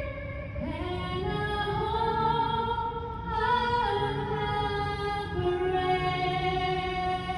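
Music with a woman singing, holding long sustained notes that step from one pitch to the next.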